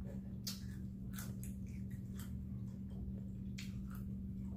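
Chewing Doritos tortilla chips: about seven short, irregular crisp crunches, over a steady low hum.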